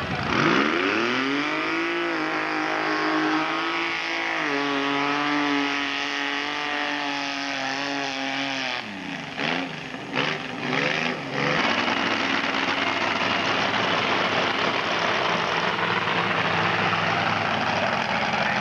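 Mud-bog race vehicle's engine launching and climbing to high revs within about two seconds. It holds there for several seconds with a slight drop partway, then falls off around nine seconds in with a few short throttle blips. After that comes a steady rushing noise with no clear engine note.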